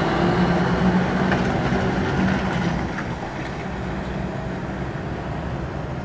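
Scania R560's V8 diesel engine pulling a loaded semi-trailer away at low speed. Its low engine note is loudest at first and drops off about three seconds in as the truck moves away.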